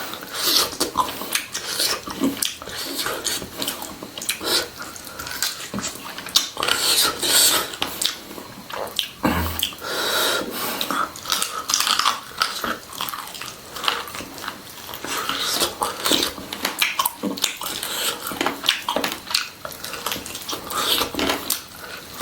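Close-up chewing and biting on hard country-chicken bones, with many short sharp crunches and cracks.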